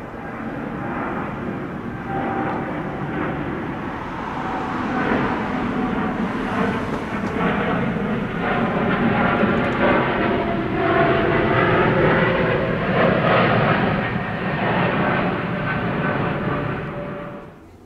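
Boeing 787 twin jet engines at takeoff thrust as the airliner climbs out close by: a loud rumbling roar that swells to a peak and then cuts off suddenly near the end.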